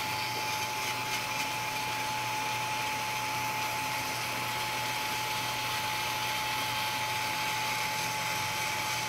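Small motor of an Attack Spider woodpecker deterrent whirring steadily as it winds the toy spider back up its line.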